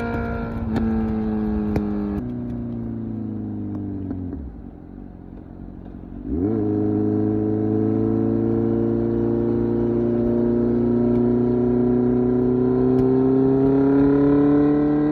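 Kawasaki Z900's 948cc inline-four through an SC Project exhaust. The engine note drops in two steps, then falls away as the throttle closes, and is quiet for about two seconds. About six seconds in it picks up sharply on the throttle, and the note then holds, climbing slowly as the bike accelerates in gear.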